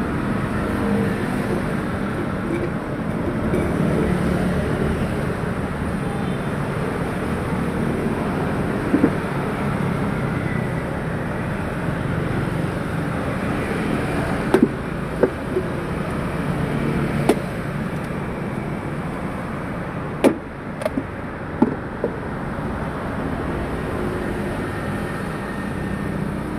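Large knife chopping into the husk of a young green coconut: a scattering of sharp knocks, most of them in the second half, over steady street traffic noise.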